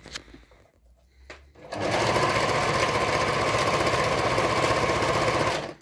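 Pfaff Variomatic 6085 sewing machine sewing a stretch stitch on fabric. It starts about two seconds in, runs steadily at speed, and stops just before the end.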